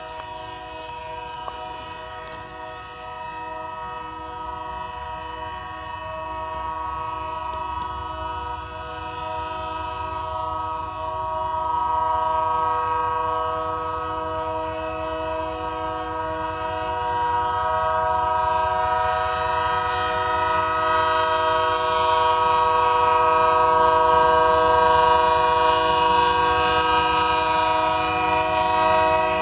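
A train horn stuck on, sounding one unbroken chord of several tones and growing steadily louder, over the low rumble of the train.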